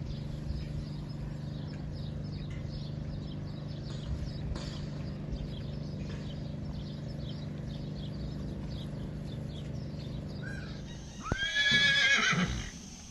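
A steady low hum, then near the end a horse whinnies loudly: a neigh that shoots up in pitch, wavers for about a second and fades.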